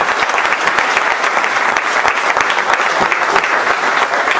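A crowd of people clapping their hands in steady applause.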